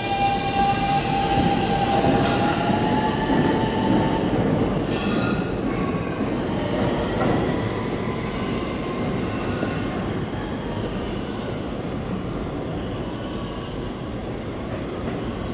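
R160 subway train pulling out of the station and accelerating away. A motor whine rises slowly in pitch in the first couple of seconds over the rumble of the wheels on the rails, and the noise fades gradually as the train recedes down the tunnel.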